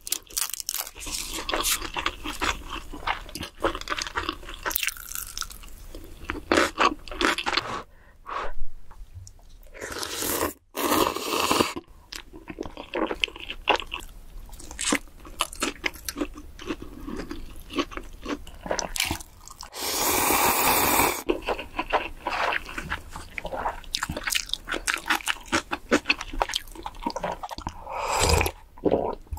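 Close-miked eating: repeated crunchy bites and chewing of fried food and a sausage, mouth right at the microphone, with a couple of longer noisy stretches and sips from a bowl near the end.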